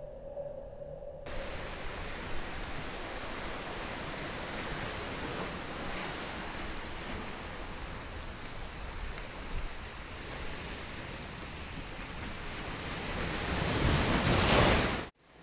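A steady hum gives way about a second in to a steady rushing noise, like wind or surf. The rushing swells louder near the end, then cuts off suddenly.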